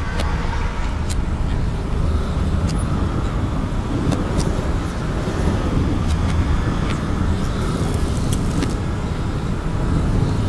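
Low, steady rumbling drone with scattered faint clicks and ticks over it, a few bunched together about eight seconds in, from a horror sound-effects ambience.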